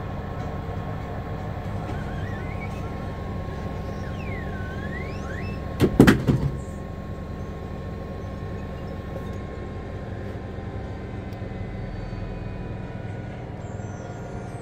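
Samsung front-loading washing machine running: a steady hum with a thin high whine, broken by a short burst of loud knocks about six seconds in.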